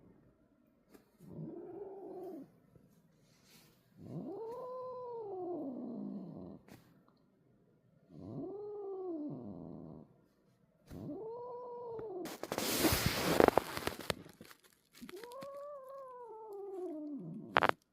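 An angry adult female cat yowling at a kitten: six long, drawn-out calls, each rising and then falling in pitch. A loud hiss comes about twelve and a half seconds in, and a short sharp burst near the end.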